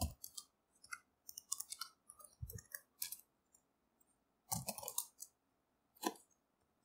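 Computer keyboard keystrokes: irregular runs of short clicks with pauses between them, as a password is typed and entered and the terminal is then cleared.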